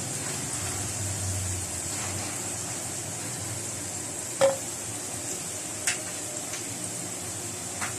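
Potatoes frying in hot oil with a steady sizzle, and a few sharp clinks of a utensil against the pan, the loudest about halfway through.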